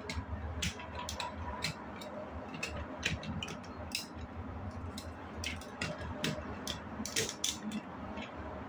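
Small plastic building bricks clicking as they are handled and pressed together: irregular sharp clicks, about two a second, over a low steady hum.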